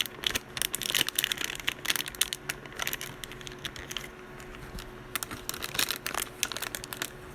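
Packaging of a collectible figure box crinkling, crackling and tearing as it is worked open by hand, in a busy run of sharp crackles that thins out in the middle and picks up again near the end.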